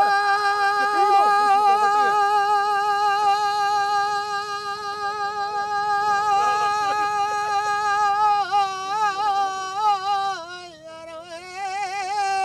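A man singing unaccompanied in a high voice, holding one long note for about eight seconds, then breaking into wavering turns and dropping in pitch before the end. Other men's voices are faint underneath.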